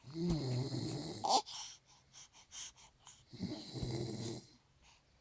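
An elderly woman snoring: two long snores about three and a half seconds apart, with a wavering low pitch and a breathy hiss, and a few faint clicks between them.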